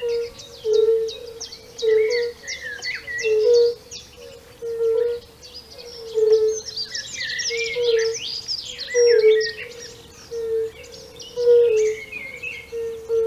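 European fire-bellied toads calling: short low hoots repeating about once a second, at two slightly different pitches from more than one toad. Songbirds chirp and sing higher up, with a dense trill near the middle.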